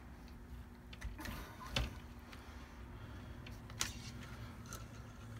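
Cleaning rod pushing a cloth patch on a jag through the bore of a .308 bolt-action rifle, the third patch pass of a bore cleaning. It is faint, with a few light clicks and taps from the rod, the sharpest about two seconds in and again near four seconds.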